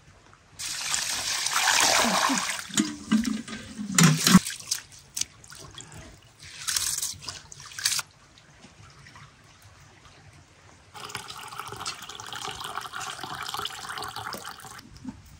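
Rice being washed for pilaf: water poured from a metal milk can into an aluminium basin of rice, splashing for about two seconds, followed by a few metal clanks and a sharp knock. Then the cloudy rinse water is poured off the rice in a stream, briefly and then again for about four seconds near the end.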